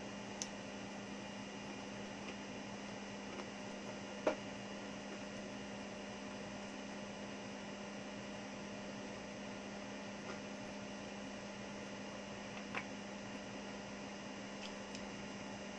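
Steady electrical hum with a low hiss, and a few faint clicks, the clearest about four seconds in.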